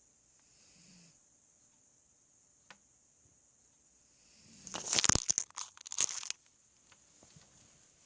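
A puppy's faint snoring breath about a second in, then a loud crackling, rustling burst lasting about two seconds, starting a little past the middle.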